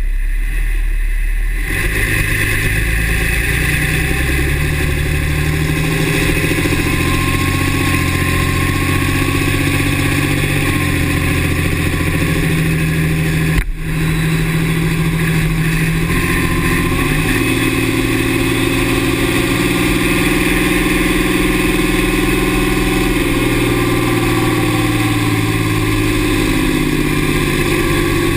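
A 2009 Dodge's 6.7 L Cummins inline-six turbo-diesel running, its engine speed stepping up and down several times, with a brief dropout about 14 seconds in. A faint thin high whine comes and goes over it; the owner's squeal sounds like the turbo to him and happens only with the exhaust brake engaged.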